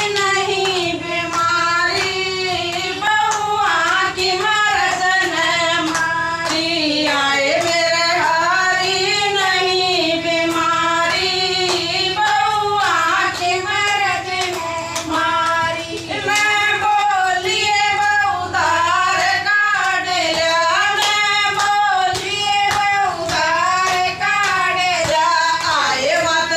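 Women singing a bhajan, a Hindu devotional song, with hand clapping keeping the beat.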